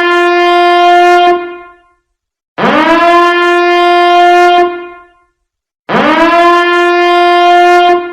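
Warning alarm sounding in three long, horn-like blasts about three seconds apart. Each blast swoops up quickly in pitch, holds a steady tone, then fades.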